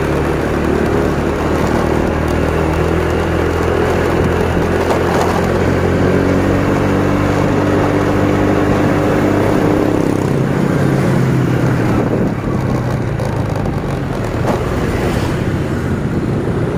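Motor scooter engine running steadily while riding along, its note dropping about ten seconds in as the scooter slows.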